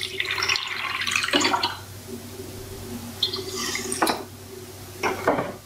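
Water poured from a small cup onto a heap of granulated sugar in a nonstick frying pan, splashing for the first two seconds and again briefly later. Two sharp knocks come near the end.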